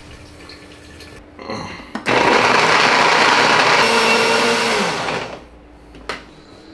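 Countertop electric blender switched on about two seconds in and running for about three seconds, blending a liquid protein shake, then winding down and stopping.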